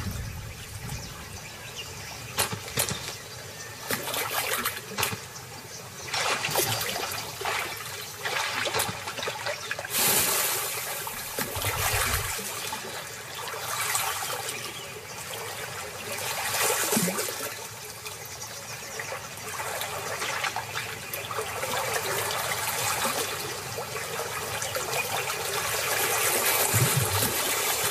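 Shallow river water sloshing and splashing around a crocodile moving through it, swelling and easing in irregular surges.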